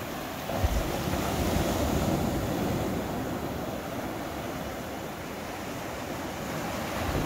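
Small waves breaking at the shoreline and washing up the sand as a sheet of foam, a steady hiss of surf that swells a little under a second in and again near the end.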